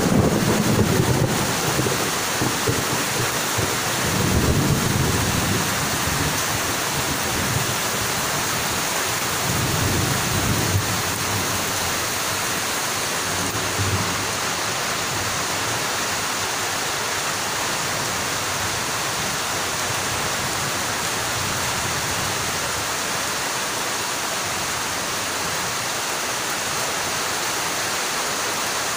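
Heavy rain pouring down steadily, with a few low rumbles in the first ten seconds or so.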